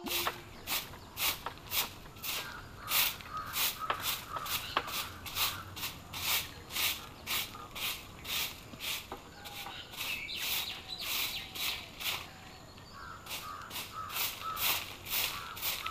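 Long-handled broom sweeping the ground in steady strokes, a swish about twice a second, with a brief pause about twelve seconds in. Birds chirp faintly.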